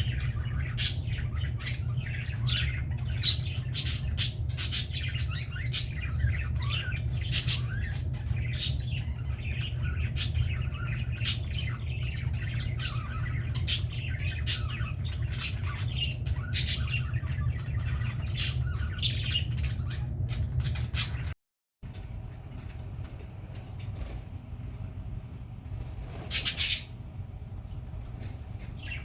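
Budgerigars chattering with many short, sharp squawks and chirps over a steady low hum. The sound cuts out for a moment about three-quarters of the way through. After that the calls are sparser, with one loud squawk near the end.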